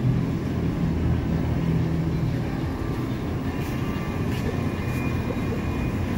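Baltimore Metro subway train running with a steady low rumble, a faint thin whine joining in the second half.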